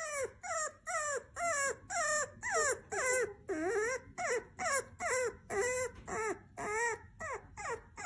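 Bulldog puppy crying in a steady string of short high whimpering yelps, about two or three a second, most of them dropping in pitch.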